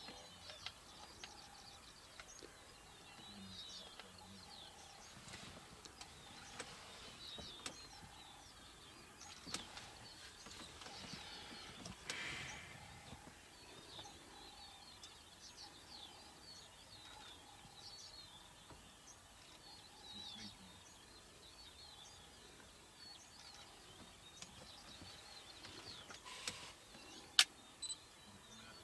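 Faint dawn chorus of many birds chirping and calling, with a short note repeating about once a second in the background. A few sharp clicks near the end.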